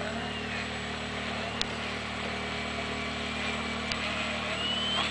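RC hydrofoil model boat's electric motor and propeller whining, holding a steady pitch and then rising near the end as the throttle opens, over a low steady hum. Two short clicks about a second and a half in and near four seconds.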